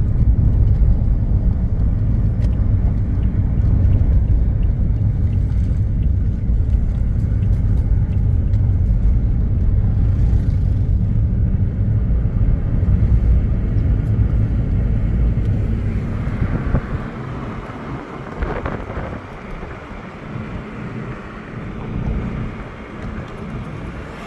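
A car driving, with a steady low rumble of road and engine noise. The rumble drops off about sixteen seconds in, leaving a quieter, lighter sound.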